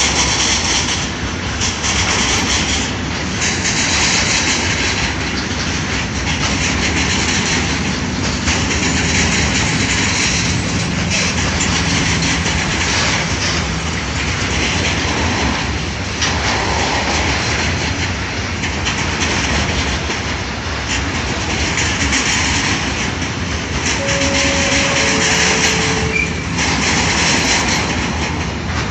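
Freight train wagons rolling past: a steady rumble with the clickety-clack of wheels over the rail joints. A brief two-note tone, the second note lower, sounds near the end.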